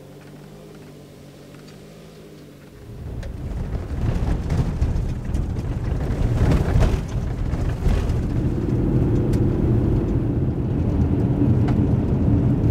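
A Toyota RAV4 running steadily, then driving on a gravel road heard from inside the cabin: a much louder rumble of tyres and engine starts about three seconds in, with a few sharp ticks.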